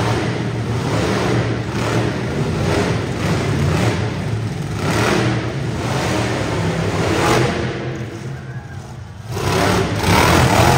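Monster truck engine revving hard in repeated surges over a steady low rumble, easing off briefly near the end before opening up again.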